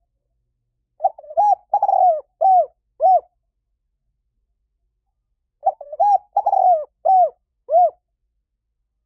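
Spotted dove cooing: two phrases of four or five arched coos each, about four and a half seconds apart.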